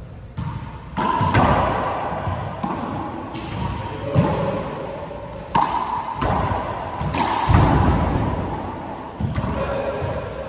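Handball rally in an enclosed four-wall court: the rubber ball slapped by hands and smacking off the walls and floor, a dozen or so sharp hits about one a second, each ringing out in the court's long echo. The hits start about half a second in.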